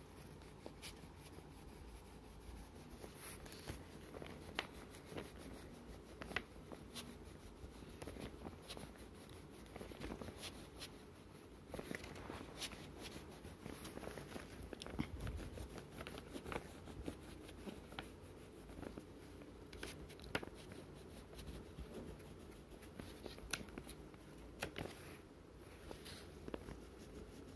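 Faint scratching of a crayon rubbing colour onto drawing paper, with scattered small clicks and taps at irregular moments.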